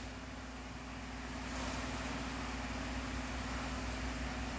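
A steady low hum with a faint hiss: room tone.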